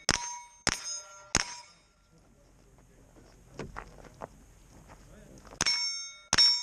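9mm carbine shots ringing steel plates, each hit a sharp crack followed by a clear metallic ring. Three hits come about two-thirds of a second apart, then there are about four seconds of light clicks and knocks, then two more hits near the end.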